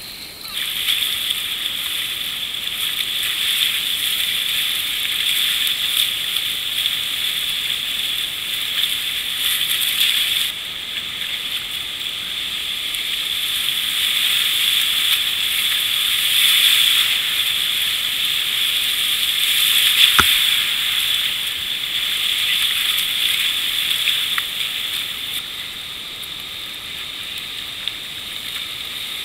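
Whitewater rapids rushing around a kayak as it runs through them, a steady loud hiss of moving water. A single sharp knock about two-thirds of the way in.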